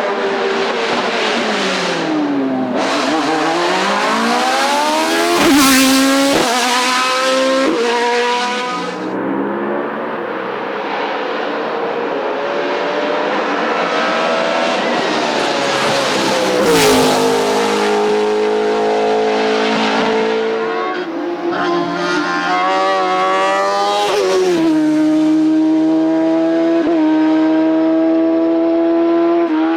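Race car engines at full throttle on a hillclimb, the pitch climbing through each gear and dropping at every shift. There are two sharp cracks, about five and a half and seventeen seconds in.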